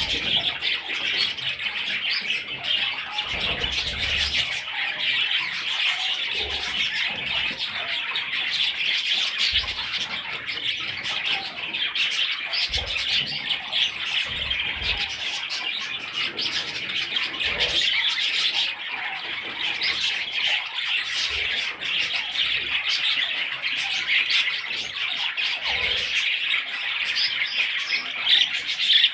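A flock of budgerigars chirping and chattering continuously in a dense, unbroken warble, with a few brief low thumps mixed in.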